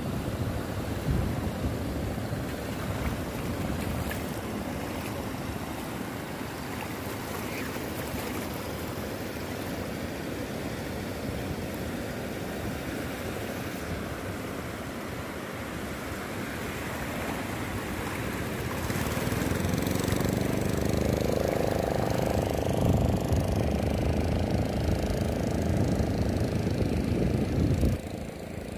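Sea surf washing and rushing in the shallows with wind on the microphone. About two-thirds of the way through, an engine's drone grows louder over the surf, then drops away suddenly near the end.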